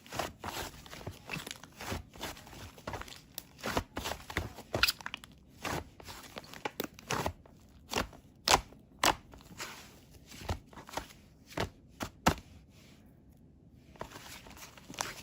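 Whipped-cream cake slime being squished and poked by hand, giving irregular sharp pops and clicks, a few a second, with a short lull near the end.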